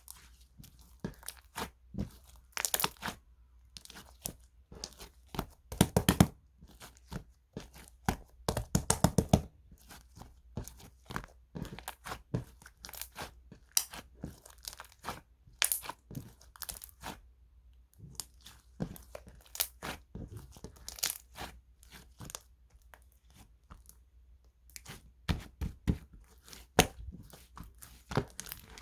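Slime being squished and worked by hand, giving many irregular crackles and pops.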